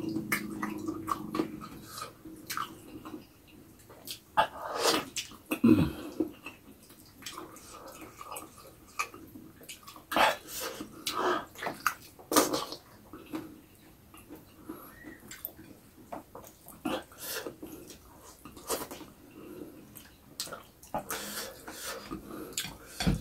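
Close-miked mouth sounds of eating a soft, gelatinous food by hand: irregular wet chewing, sucking and lip-smacking, in scattered clusters of clicks and slurps.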